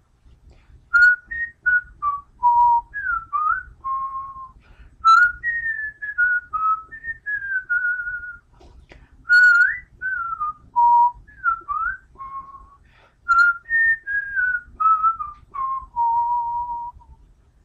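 A person whistling a tune: a single line of short notes and slides with a few brief pauses, ending on a held lower note.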